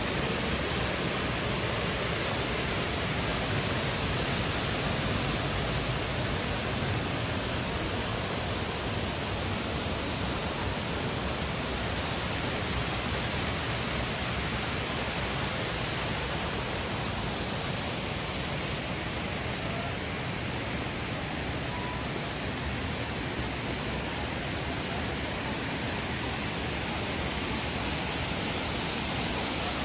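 Waterfall rushing in a steady, even roar of falling water that stays constant throughout.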